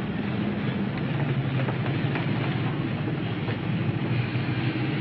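Steady rumble of railway and street traffic, with a low drawn-out hum that shifts in pitch a few times.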